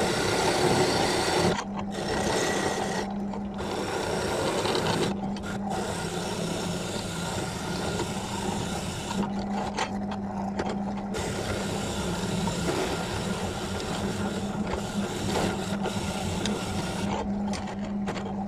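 An electric power tool's motor running steadily with a constant hum, while something rasps against the workpiece.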